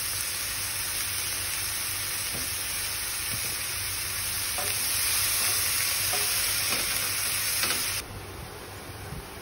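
Broccoli florets sizzling in a hot pan, a steady hiss, with a few light knocks of a wooden spoon stirring them in the second half. The sizzle drops off suddenly about eight seconds in, leaving a quieter hiss.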